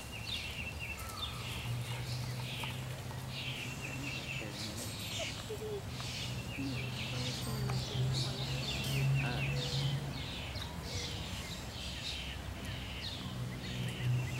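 Small birds chirping over and over, short falling chirps about once or twice a second, above a steady low hum.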